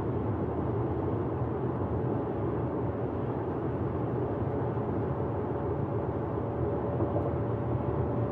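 Steady road and engine noise heard inside a car's cabin while driving at highway speed, with a faint steady hum running through it.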